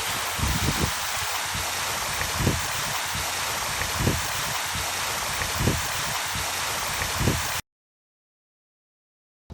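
Steady rushing, water-like noise with a soft low thump about every second and a half, cutting off abruptly about seven and a half seconds in, followed by silence.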